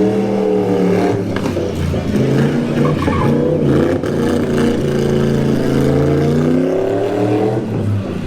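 Car engine being revved in slow swells, its pitch rising and falling. A longer climb in the second half drops away just before the end.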